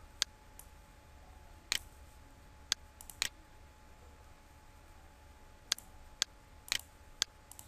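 Computer mouse button clicks, about ten short, sharp clicks spaced irregularly, some in quick pairs, over a faint low steady hum.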